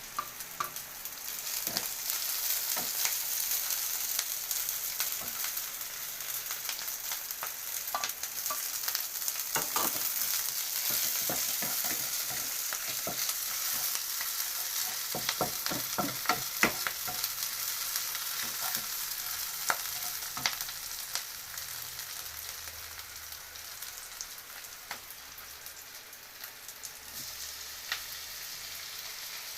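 Food sizzling as it fries in a pan, stirred with a utensil that clicks and knocks against the pan, with a quick run of knocks around the middle. The sizzle swells about a second in.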